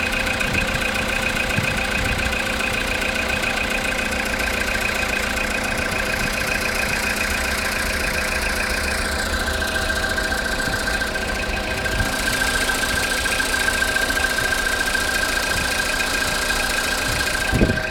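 Car engine idling after a cold start from an overnight stand, with a knocking in the engine. The owner says the knock goes quieter when revved and disappears after about ten minutes of warming up. A short thump comes near the end.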